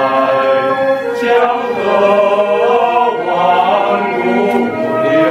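Small men's chorus of five voices singing a Chinese song in harmony, holding long sustained notes that move together from chord to chord.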